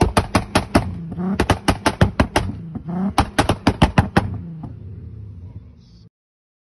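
Volkswagen Golf GTI exhaust popping and crackling: three quick strings of sharp bangs, about five or six a second, each following a short blip of the throttle, over the idling engine. The engine sound then fades and cuts off suddenly near the end.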